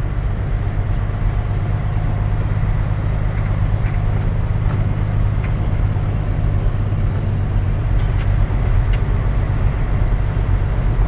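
Semi truck's diesel engine running steadily with a low drone, heard from inside the cab.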